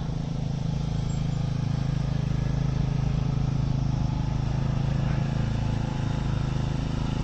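An engine running steadily, a low pulsing hum.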